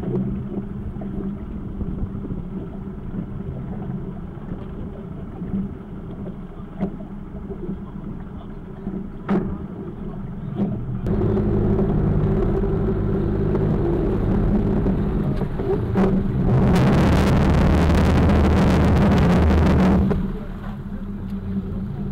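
Outboard engines of an RNLI inshore lifeboat running steadily at low speed, then picking up to a louder, deeper run about eleven seconds in. Near the end a loud rushing noise covers the engines for about three seconds before the level drops back to a lower run.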